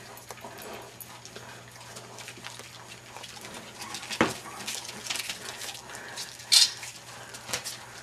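English Bulldog puppies moving about on newspaper bedding and being handled: paper rustling and scuffling with scattered clicks, a knock about four seconds in and a sharp crackle about six and a half seconds in.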